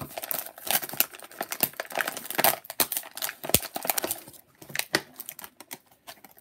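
Toy packaging crinkling and rustling as it is handled, with many small irregular clicks, dying down about four and a half seconds in.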